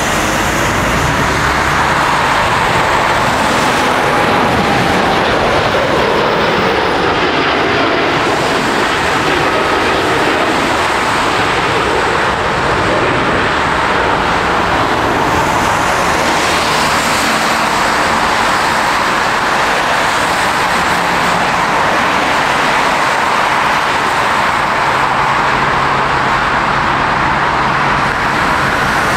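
Jet airliner's engines running loud and steady, a dense roar with a faint whine that glides slowly down in pitch as the aircraft passes.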